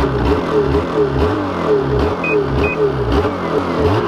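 Ski-Doo snowmobile engine revving up and down in quick repeated throttle blips, about two a second. Two short high beeps sound about halfway through.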